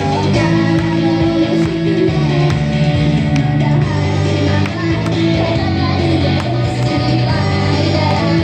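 Live idol-pop performance: an upbeat pop-rock backing track with guitar, with girls singing into handheld microphones over it.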